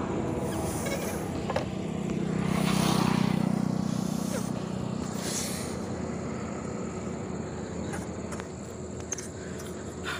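Steady outdoor roadside noise with a motor vehicle passing, its engine hum swelling to the loudest point about three seconds in and then fading.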